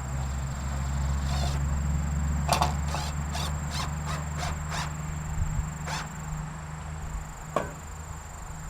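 Wind rumbling on the microphone, with a quick run of about eight light taps, roughly three a second, a few seconds in and a couple of single knocks later.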